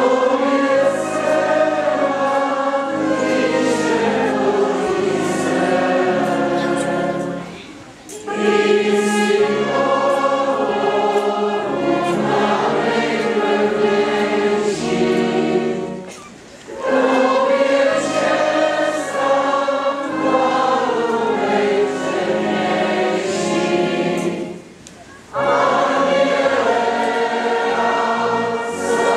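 Many voices singing a church hymn together in long, steady phrases, with a brief pause between lines about every eight seconds.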